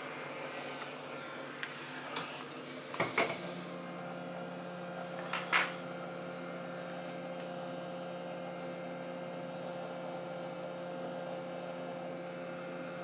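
Steady electrical hum from bench equipment, joined by a second, stronger steady tone about three and a half seconds in, with a few light clicks and taps of tools in the first six seconds.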